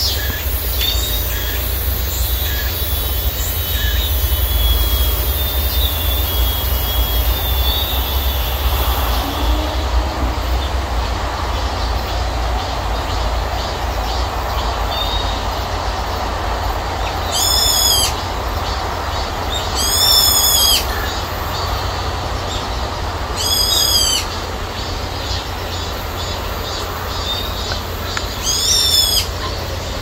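Cicadas singing: a high, shrill drone that stops about nine seconds in, then four short rising-and-falling calls a few seconds apart, over a steady low rumble.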